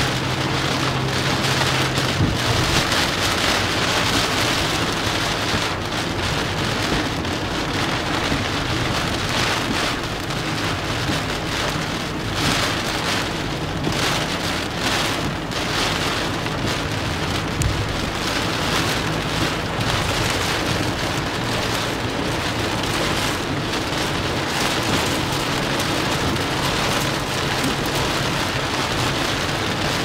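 Heavy typhoon rain pelting a moving car in a steady, dense downpour, mixed with the hiss of tyres on the flooded road and a faint low engine hum.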